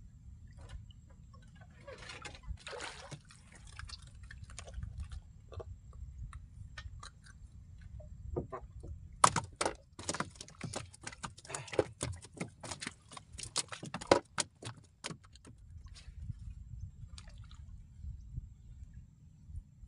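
Irregular run of sharp knocks and rattles against a wooden boat about nine seconds in, lasting several seconds, as things are handled in the bottom of the boat. Under it, a low steady rumble of wind and water, with a short burst of noise about two seconds in.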